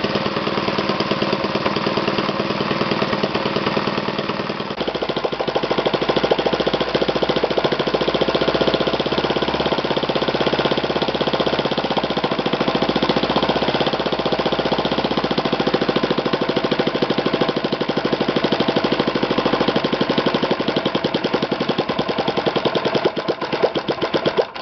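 Magnum 120S single-cylinder four-stroke glow model engine running on the bench with its propeller turning, in a fast, even beat. It gets louder about five seconds in, falters near the end and then stops suddenly.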